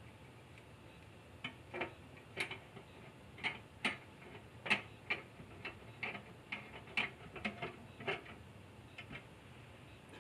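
Irregular small metal clicks and taps, a few a second, from a screwdriver and screw working a bracket onto the metal case of a soldering rework station. They begin about a second and a half in and stop shortly before the end.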